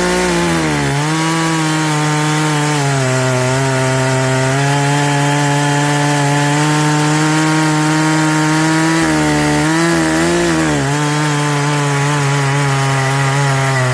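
Chainsaw cutting through a log, the engine held at high revs under load with a steady pitch. The revs dip and waver briefly about ten seconds in.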